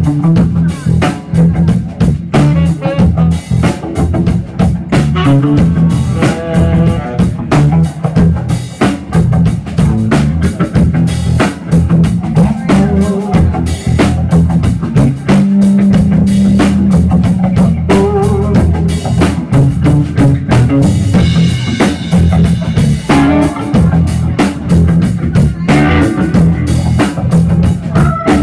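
Live instrumental band music: electric guitar lines over electric bass and a drum kit, played loud.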